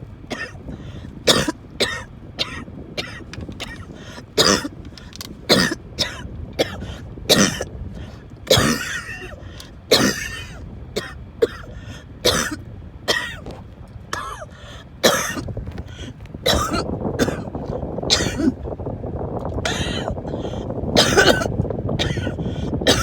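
A person in a coughing fit: many short, hard coughs in quick succession, broken by a few longer wheezing, gasping breaths. Steady low background noise rises in the last third.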